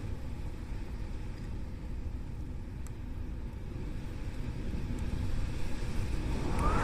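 Howling wind: a steady low rumble and rush. Near the end a whistling howl rises in pitch and then begins to fall away.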